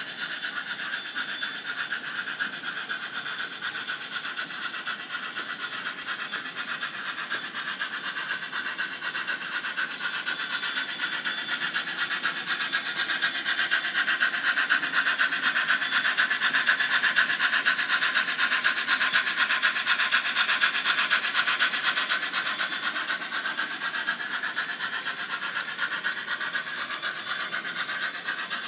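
Model 4-4-0 steam locomotive and its train running along the layout track: a steady whirring of the electric motor, gearing and wheels on the rails. It grows louder as the train passes close by through the middle and eases off near the end.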